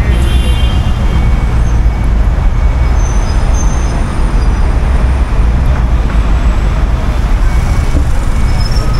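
Road traffic: a steady stream of cars passing on a city road, a continuous low rumble.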